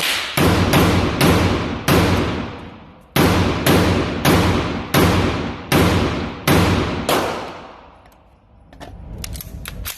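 10.5-inch AR-15 pistol firing about a dozen shots of steel-cased ammunition, spaced roughly half a second to a second apart, with one longer pause about two seconds in. Each shot is a sharp crack with a long echoing tail in the enclosed range. A few light clicks follow near the end.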